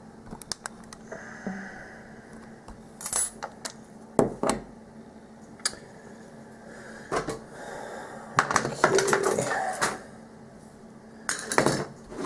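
Small metal clicks and clinks from a picked-open mortise lock cylinder and metal tools being handled as it is taken apart, with a longer spell of rattling and scraping about two-thirds of the way through.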